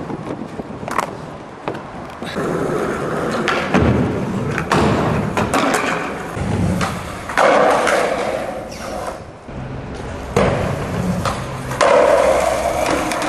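Skateboard wheels rolling on concrete, broken by repeated sharp clacks and thuds of the board striking the ground on trick attempts and landings.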